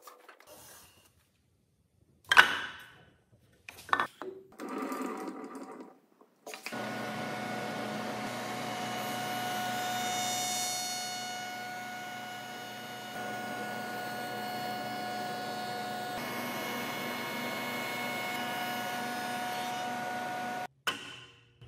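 Spindle shaper with a concave half-inch-radius cutter, running with a steady hum and whine while a wooden board is fed through it. It starts about six and a half seconds in and stops abruptly near the end. Before it starts there are a few knocks and clatters, one sharp and loud.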